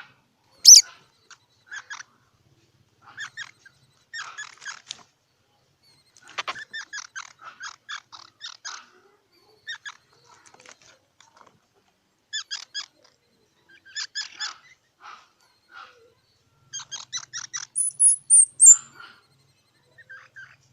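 Squirrel calling in repeated bursts of rapid chattering notes, with a sharp, loud squeak about a second in and a high whistled note near the end.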